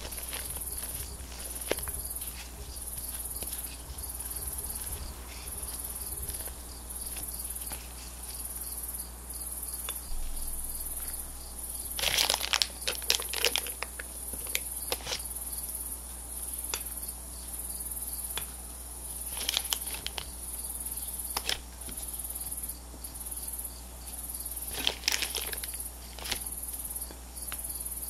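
Plastic piping bag crinkling and a spatula scraping as thick whipped cream is pushed into the bag, loudest about twelve seconds in and again near the end. Behind it, a high insect-like chirp pulses about once a second.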